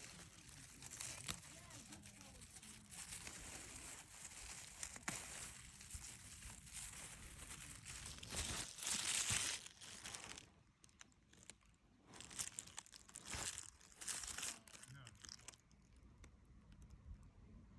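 Rustling, crinkling and tearing of leafy herb plants being handled and picked by hand, in irregular bursts, loudest about nine seconds in.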